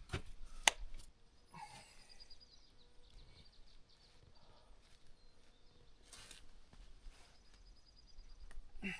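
Quiet outdoor ambience in which a small bird gives a faint, high, rapid trill twice. A single sharp click sounds just before a second in.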